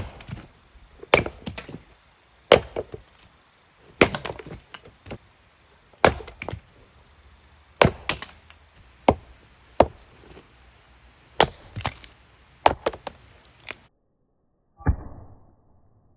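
Repeated sharp woody chopping strikes, about a dozen at one every one to two seconds, each followed by a splintering crackle. After a short break near the end comes one more strike that rings on briefly.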